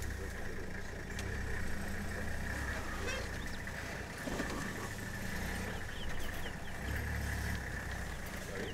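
A vehicle engine idling, a low steady hum that swells and eases, with a steady high drone above it and a few faint bird chirps late on.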